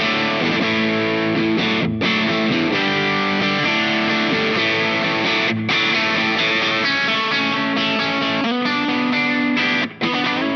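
Electric guitar, a Fender Aerodyne Special Telecaster, played through the Zendrive-style overdrive side of a Caline Key West pedal. Distorted chords are strummed and left to ring, with brief breaks between them about 2, 5.5 and 10 seconds in.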